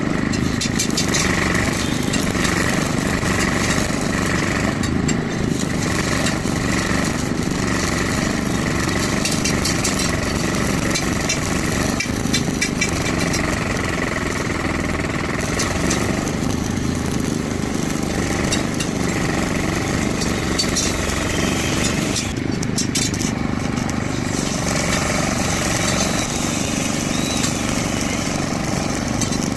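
Stick welding arc, crackling steadily and without a break.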